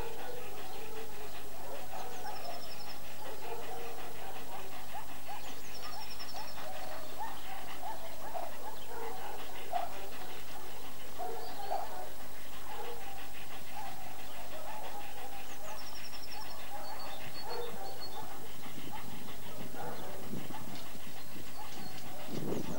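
German shepherd dog panting, with short whining and whimpering sounds.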